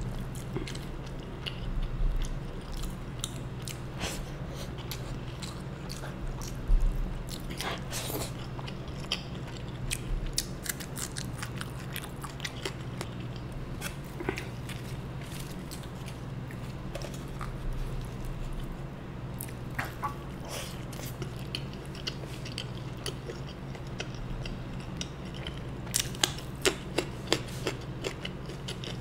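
Close-miked eating: chewing and wet mouth sounds of a person eating rajma (kidney bean curry) with rice and roti by hand, with many small clicks throughout and a quick run of sharp clicks near the end, over a steady low hum.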